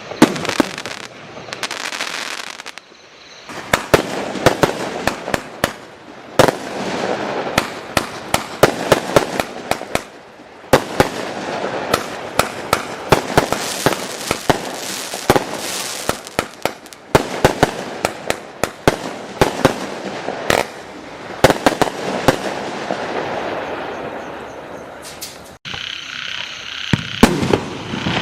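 Fireworks going off in a rapid barrage, with many sharp shots and bursts a second over continuous crackling. About 25 seconds in it briefly cuts out, then carries on.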